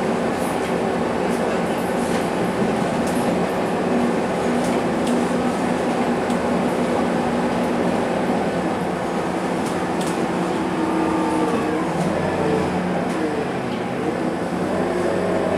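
Scania K230UB bus heard from inside the passenger cabin while driving: the steady drone of its 9-litre five-cylinder diesel and drivetrain with a whining tone, the pitch shifting for a few seconds about two-thirds through as the speed changes. Light rattles and ticks from the bus interior come and go.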